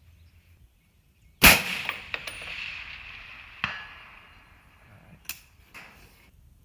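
A 6.5 Creedmoor AR-10 rifle fires once about a second and a half in, its report echoing for a couple of seconds. About two seconds after the shot a single sharp smack comes back: the bullet striking the steel target at 546 yards. A few lighter clicks follow near the end.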